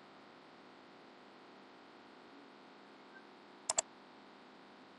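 A computer mouse double-clicking once, about three and a half seconds in, over a steady faint hiss.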